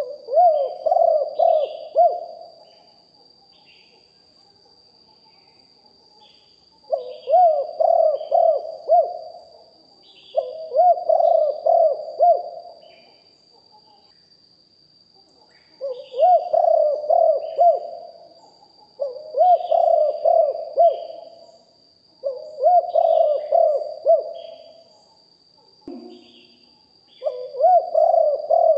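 Spotted dove cooing over and over: seven phrases of about two seconds each, a few seconds apart, with faint chirps of small birds between them.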